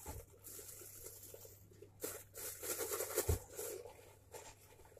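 Thin plastic bag crinkling and rustling as it is untied and handled, loudest in the middle, with one soft thump about three seconds in.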